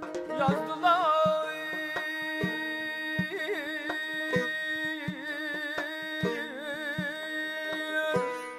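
Male mugham voice singing long wordless melismatic runs with fast wavering trills, over instruments holding steady notes and low drum strokes. The trilled singing breaks off near the end.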